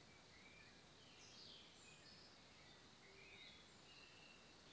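Near silence: faint forest ambience with a few faint, brief bird chirps scattered through, some falling in pitch.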